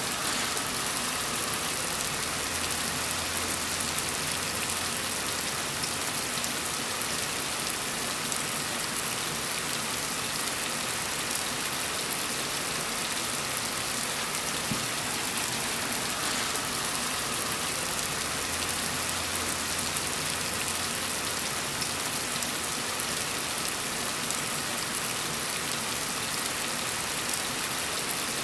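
Heavy rain falling steadily, an even hiss of drops with no breaks.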